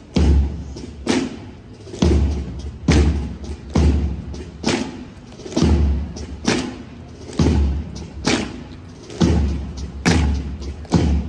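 Evzones' marching steps, their hobnailed tsarouchia clogs striking the street in unison: an even beat of sharp cracks with a deep thud, a little under one a second.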